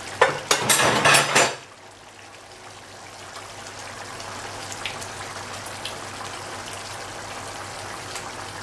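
Grated tomato sauce bubbling and popping in a frying pan on a gas burner as it boils down. It opens with about a second and a half of loud knocking and scraping.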